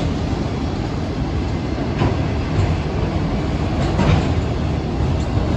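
Florida East Coast Railway freight train's autorack cars rolling past: a steady low rumble of steel wheels on rail, with a sharper clack about two seconds in and again about four seconds in.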